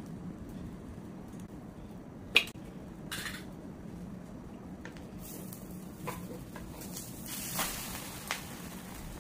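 Omelette cooking in a non-stick frying pan on a gas burner. There is a sharp knock of a utensil against the pan about two seconds in, then a scrape, and near the end a hiss of sizzling with light clatter as the omelette is turned over. A steady low hum runs underneath.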